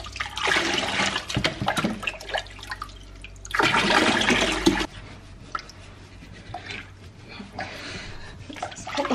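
Water splashing and pouring in a kitchen sink while a golden retriever puppy is washed, in uneven bursts; the loudest comes about four seconds in and stops abruptly, followed by quieter splashing.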